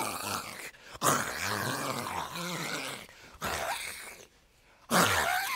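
A woman's voice making rough, growling, rushing noises that imitate the muffled, distorted sound of a voice note recorded through AirPods. The noises come in three bursts, with short pauses about three seconds in and again just past four seconds.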